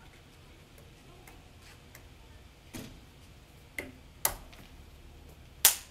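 Irregular sharp clicks or taps close by, faint and sparse at first, then louder and more frequent, with the loudest near the end.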